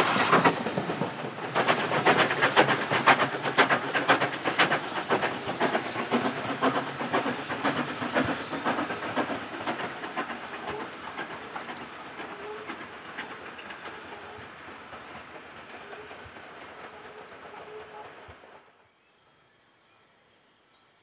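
Steam-hauled passenger train passing close: the coaches' wheels click rapidly over the rail joints with steam hissing. The sound fades steadily as the train draws away, then stops abruptly near the end.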